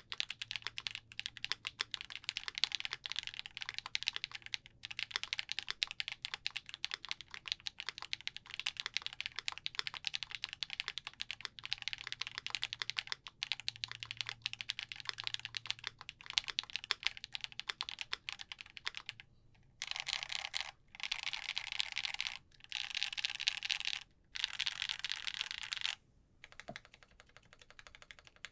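Typing on a custom gasket-mounted 65% keyboard with a polycarbonate plate, lubed KTT Halu Halo switches and GMK keycaps, a fast run of individual keystroke clicks. About two-thirds of the way through the typing turns into a few dense, continuous bursts of rapid keystrokes with short pauses between, then slows to a few scattered keystrokes near the end.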